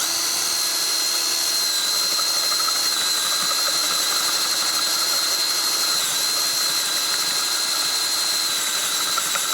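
Electric drill running steadily under load as a 1 1/4-inch bit bores the entrance hole through a 1x6 wooden board, with a steady high whine over the motor noise.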